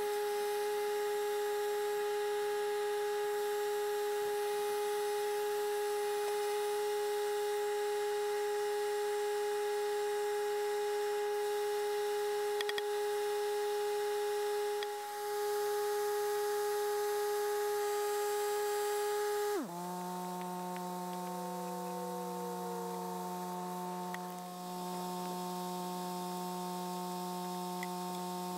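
A steady humming drone of several held tones. About twenty seconds in it shifts abruptly to a lower, fuller set of tones.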